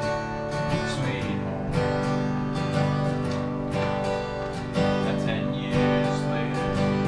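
Acoustic guitar strummed steadily, an instrumental break between verses of a folk ballad.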